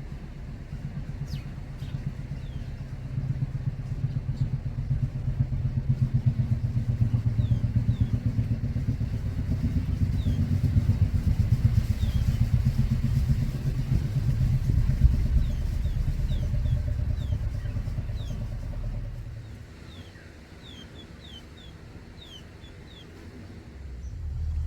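A motor vehicle's engine, likely a motorcycle, running close by with a pulsing rumble that builds over the first few seconds and then fades away at about 19 seconds. Small birds give short, high, falling chirps throughout, most often near the end.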